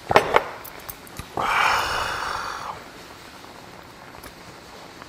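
A drinking bowl set down on the wooden table with a couple of sharp knocks. A second later comes a loud, breathy exhale lasting about a second, the satisfied gasp after a swig of makgeolli.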